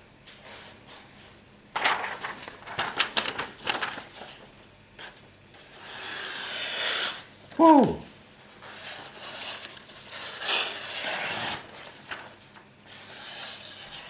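Buck knife slicing through a sheet of paper in a sharpness test of its freshly stropped, mirror-polished edge: crinkling paper, then several smooth hissing cuts. Just before the middle, a brief falling squeak is the loudest sound.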